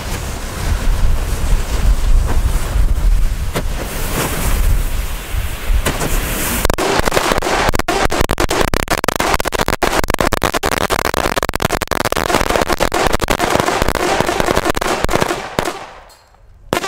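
Wind rumbles on the microphone for several seconds. Then a spider of Klasek 0.5 g firecrackers goes off in a dense, rapid string of bangs for about nine seconds and stops suddenly, with one last single bang near the end.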